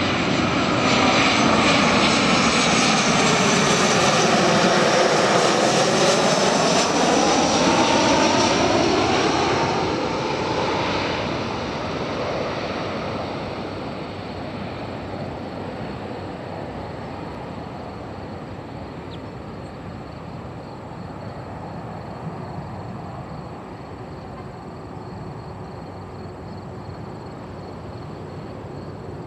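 Boeing 737-700 jet airliner, with its two CFM56-7B turbofan engines at landing-approach power, passing low overhead. The loud jet noise sweeps down in tone and back up as it goes over, then fades from about ten seconds in as the plane draws away toward the runway.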